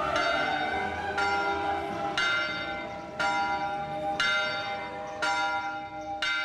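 Church bell tolling, struck about once a second (seven strokes), each stroke ringing on into the next.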